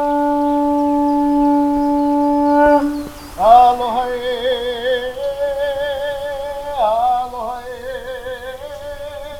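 Conch shell (pū) blown in long blasts: one steady held note for about three seconds, then after a short break a second long blast that swoops up at its start and wavers in pitch.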